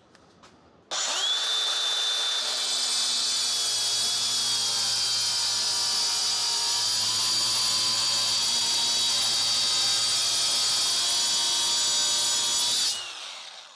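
DeWalt FlexVolt cordless angle grinder with a 4½-inch EZARC diamond cutting wheel, cutting through a metal bar. A few faint clicks, then about a second in the grinder starts with a high whine and cuts steadily, winding down with a falling whine near the end.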